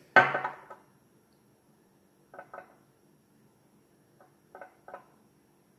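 Small hard objects being handled: one louder sharp clink just after the start, then a few faint light clicks, mostly in pairs.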